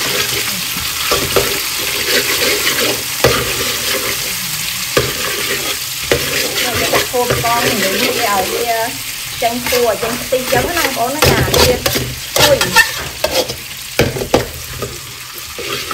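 Chopped garlic sizzling in hot oil in a metal wok, stirred with a metal ladle that scrapes and clinks against the pan, the strokes coming thicker in the second half.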